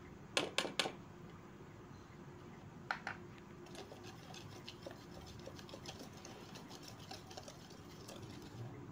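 Wire whisk in a stainless steel bowl: a few sharp knocks about half a second in and again near three seconds, then rapid light clicking and scraping as the whisk beats mashed banana into the egg, sugar and oil mixture.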